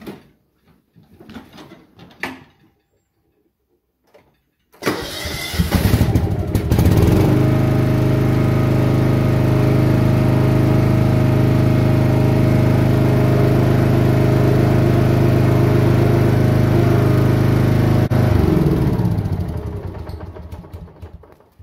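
John Deere F525 lawn tractor's engine starting about five seconds in, running steadily, then shut off and winding down near the end, while the tractor is driven up onto wooden blocks.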